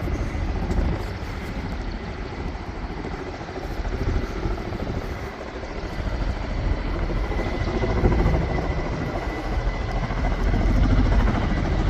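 Emergency helicopter running close by: a steady heavy rotor and engine noise that dips about halfway through, then swells again toward the end.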